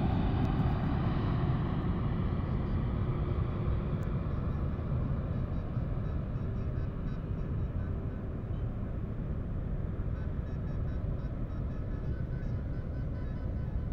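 Jet airliner engines rumbling on final approach and landing, fading steadily as the plane comes down onto the runway and draws away.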